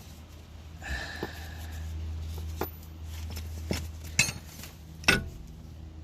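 Metal clinks and knocks from the parts of a ball joint press tool being fitted over a new pressed-in ball joint, a few separate strikes over a low steady hum.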